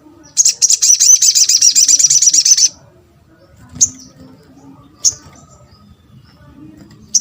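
Sogok ontong (little spiderhunter) calling: a loud, fast trill of high notes, about nine a second, lasting a couple of seconds. It then gives three single sharp chirps over the next few seconds.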